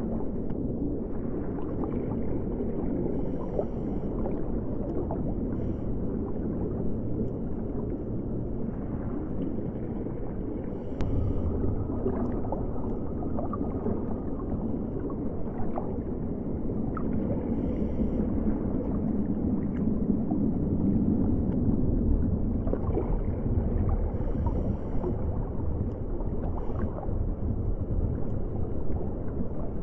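Underwater ambience: a steady muffled water rumble with scattered fine crackling clicks, and brief faint hisses every few seconds.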